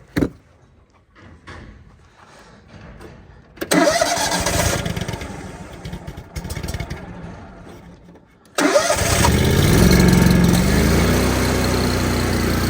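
Twin-cylinder gasoline engine of a Hobart welder/generator: a click, then the starter cranks it for about five seconds, and about eight and a half seconds in it catches, speeds up and settles into a steady run. The no-start fault it has just been cured of was the carburetor's anti-backfire solenoid.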